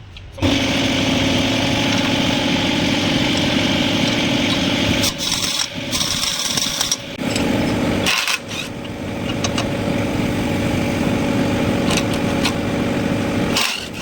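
An engine running steadily. It starts suddenly about half a second in and breaks off briefly a few times.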